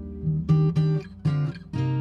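Background music on acoustic guitar: a run of plucked and strummed chords, several attacks in quick succession.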